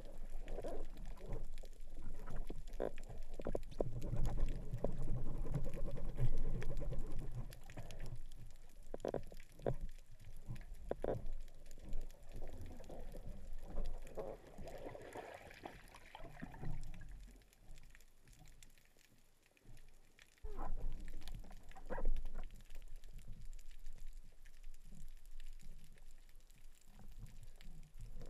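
Muffled underwater sound of spearfishing: a low rumble of water moving past the camera housing, with knocks and clicks from the speargun and shooting line being handled as a speared sea bass is brought in. The sound is busiest in the first several seconds and quiets down in the middle before a few more knocks.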